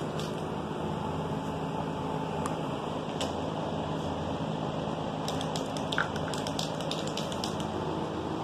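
Steady noise of shop fans running, with the clicking rattle of the mixing ball inside an aerosol spray paint can as the can is shaken, a few scattered clicks and then a quick run of them about five to seven seconds in.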